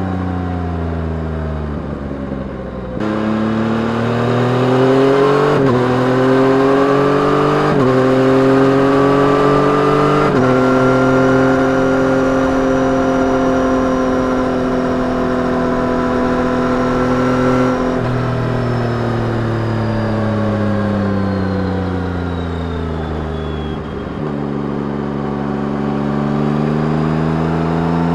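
2021 Yamaha MT-09's 890 cc inline-three on its stock exhaust, under way. The note falls at first, then about three seconds in the throttle opens hard and the engine climbs through three quick upshifts, each a sudden dip in pitch before it rises again, then holds a steady cruise. About two thirds of the way through the throttle is rolled off and the note falls as the bike slows, before it pulls and rises again near the end.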